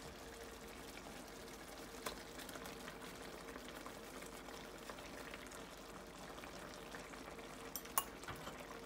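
Tomato chutney simmering in a pan on a gas burner: faint steady bubbling and popping, with a steady faint hum underneath and a light tap about two seconds in.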